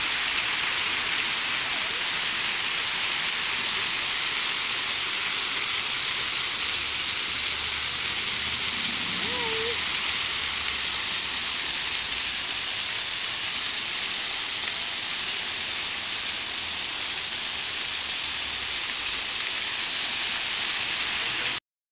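Fountain water jets spraying and falling back, a loud steady hiss heard close up from among the jets.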